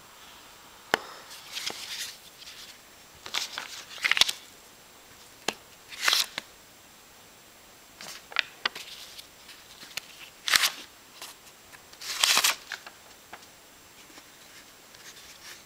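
Cardboard magic wallet with ribbon hinges being flipped open and shut by hand: sharp taps of the card flaps and short paper rustles, about ten of them at uneven intervals.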